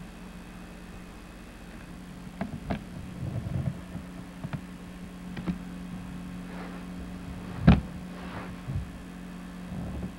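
Handling noise: a series of short knocks and taps, about eight in all, the loudest a bit past halfway, over a steady low hum.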